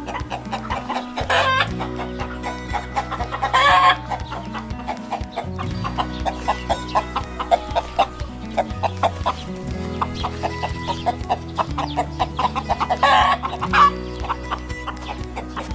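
Chickens clucking over and over, with three louder, longer squawking calls, over background music with held low notes.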